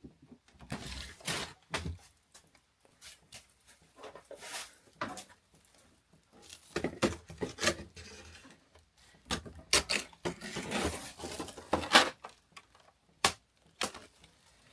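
Plastic freezer and sandwich bags of frozen vegetables crinkling and rustling in irregular bursts as they are handled and packed, with occasional sharp clicks and knocks of frozen packs being set down.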